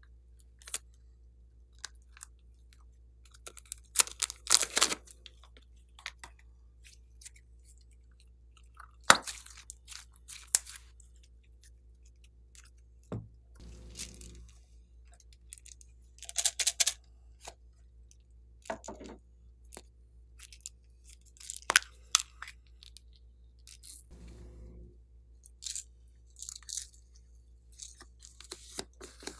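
Handling sounds of a plastic piping bag of slime: short bursts of crinkling and squishing with quiet stretches between, as the bag is cut and the slime squeezed out. Near the end, small beads and sequins rattle as they are shaken out of a plastic container.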